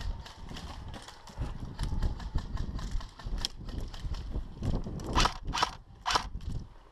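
Footsteps of an airsoft player on the move, with gear rattling at a quick pace. About five to six seconds in come three louder, sharp snaps.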